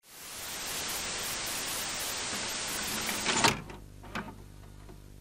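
Static-noise intro sound effect: a steady hiss fades in and holds, then breaks off with a sharp glitchy burst about three and a half seconds in. A faint low hum with a few short glitch clicks follows.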